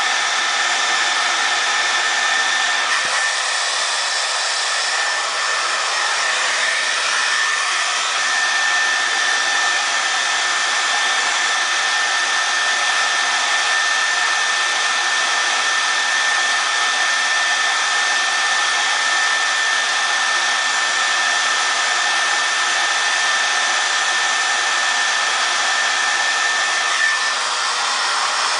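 Handheld hair dryer running steadily: a constant rush of air with a steady high whine through it.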